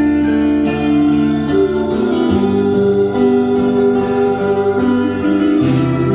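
Instrumental passage of a live band between sung lines: sustained melody notes over a guitar accompaniment.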